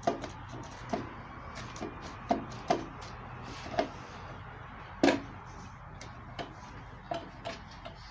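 Irregular sharp clicks and light knocks, about ten spread unevenly, the loudest about five seconds in. They sound like hard objects being handled. A faint low hum lies under the first second and a half.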